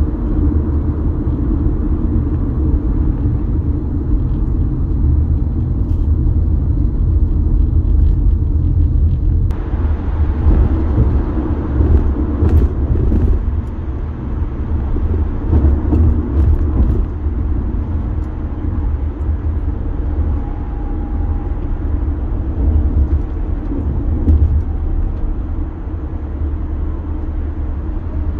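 Road and engine noise heard inside a car's cabin while driving at highway speed: a steady low rumble of tyres on the pavement. The hiss above the rumble turns brighter suddenly about ten seconds in.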